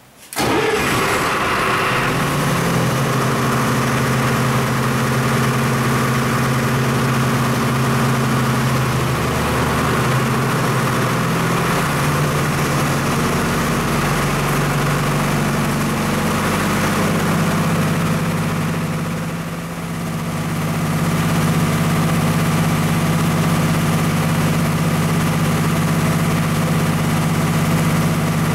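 MEP-004A military diesel generator's four-cylinder diesel engine starting up, catching almost at once and then running steadily and strong on all four cylinders. The sound dips briefly about two-thirds through, then settles back to a steady run.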